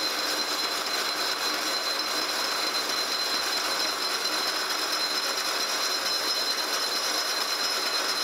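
Kearney & Trecker horizontal milling machine running a face mill under power feed, taking a 50-thousandths roughing cut across a cast iron straight edge casting. Steady cutting noise with a constant high whine.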